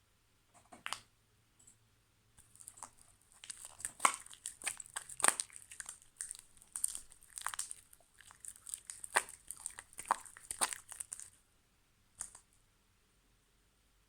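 Hands squishing and stretching fluffy slime mixed with shaving foam, giving a dense run of crackling pops as trapped air bubbles burst. It starts about two seconds in, stops a few seconds before the end, and one last pop follows after a short pause.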